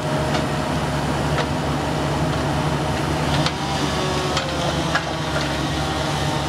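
An engine running steadily at constant speed, with a few sharp clicks or knocks over it.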